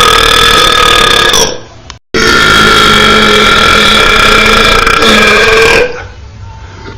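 Two loud, deliberate power burps: a short one lasting about a second and a half, then after a brief break a long one held at a steady pitch for nearly four seconds.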